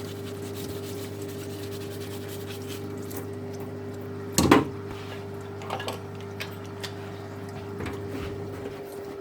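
A steady hum throughout. About halfway through comes one loud knock with a short clatter, followed by a few light clicks and taps: small hard parts of a disassembled nail gun being handled and set down on a bench.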